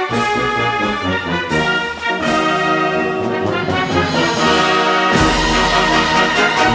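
Military band playing a loud brass passage, with trombones and trumpets in sustained chords and sharp accented entries. A deep bass note comes in about five seconds in.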